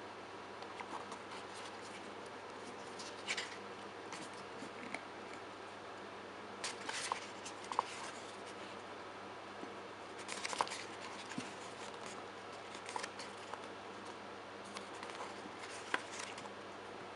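Pages of a glossy CD-album photobook being turned and handled by hand: short paper rustles and flicks, with a louder page turn every few seconds.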